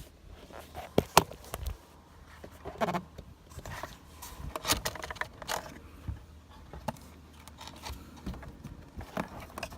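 Plastic trim handling noises: scattered clicks, knocks and creaks as the window switch panel is pulled and slid out of the Audi A4 door armrest. There are two sharp clicks about a second in.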